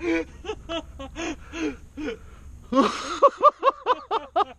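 A man gasping and panting in breathless excitement, with short voiced gasps and half-uttered sounds. About three seconds in they quicken to a rapid run of short gasps, about six a second.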